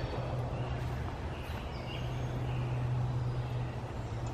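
Quiet outdoor ambience: a steady low hum with a few faint high chirps about a second and a half in.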